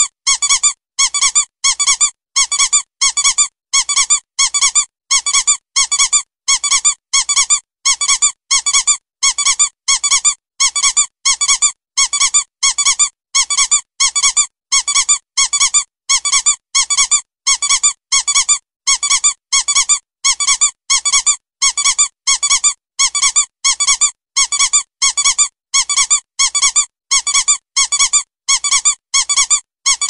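Squeaky toy squeezed over and over, giving shrill squeaks in quick pairs that repeat at a steady, even pace.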